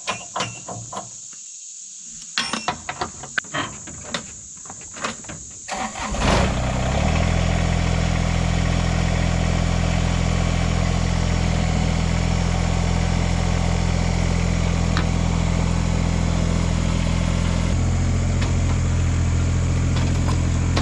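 Handling clicks and knocks, then about six seconds in an engine starts quickly and settles into a steady idle, with a slight change in its tone near the end.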